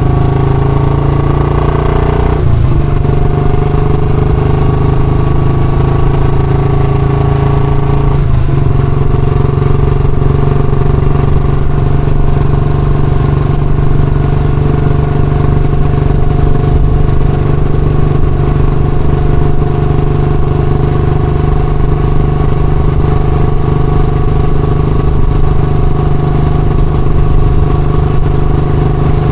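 Royal Enfield Classic motorcycle's single-cylinder engine running steadily, with two brief shifts in its note, about two and a half and eight seconds in.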